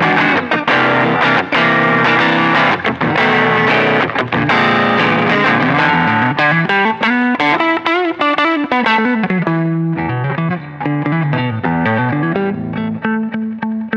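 Fender American Standard Stratocaster electric guitar played with distortion. Full chords ring for the first half, then single-note runs climb and fall in pitch, settling on a held note near the end.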